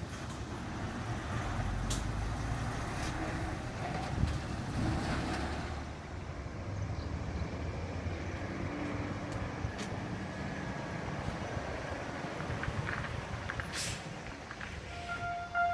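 Road vehicles running past a railway level crossing, a steady low engine rumble with a few sharp clicks. About a second before the end, the crossing's electronic warning bell starts its steady ringing tone.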